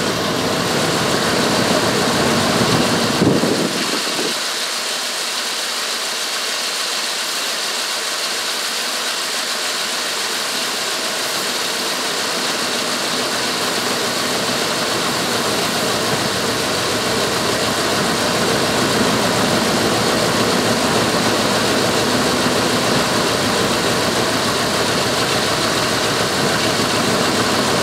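Dodge Ram 1500's 318 (5.2-litre) Magnum V8 idling steadily under the open hood, on a newly fitted lower intake plenum. After a suspected exhaust or vacuum leak, it sounds better now.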